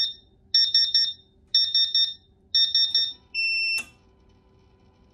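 CW-5000 industrial chiller's alarm buzzer beeping as the unit is powered up, in quick clusters of short high beeps about once a second. Then comes one longer steady beep that ends with a click, and a faint steady tone carries on as the chiller runs.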